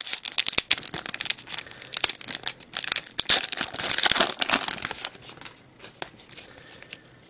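Thin trading-card pack wrapper crinkling and tearing as a retail pack is ripped open by hand. The crackle dies down about five seconds in.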